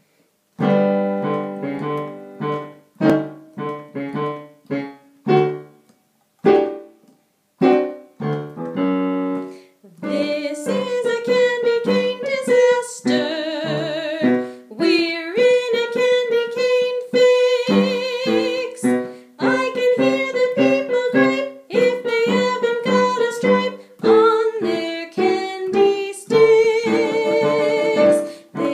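Piano chords played alone for about ten seconds, then a woman sings along with the piano accompaniment.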